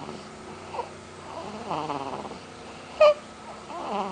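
Snoring: a long pitched snore comes about every two seconds with each breath. A brief sharp sound cuts in about three seconds in and is the loudest moment.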